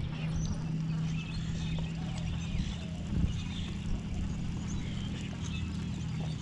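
A steady low motor hum holding one pitch, with many short high chirps from birds over it.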